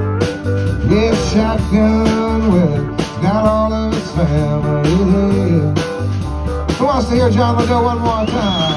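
Live rock band playing: electric guitars over a steady bass line and a drum kit, with a lead line that slides and bends in pitch and a high wavering note near the end.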